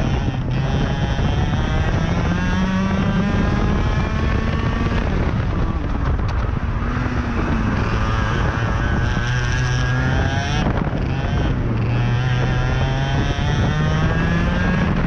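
IAME X30 125cc two-stroke kart engine at full throttle, its pitch climbing steadily on acceleration and falling away twice as the kart slows for corners. Wind rushes over the helmet-mounted microphone.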